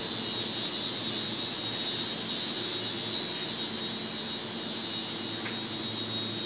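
Steady drone of large machinery running, with a constant high-pitched whine over it and a faint click about five and a half seconds in.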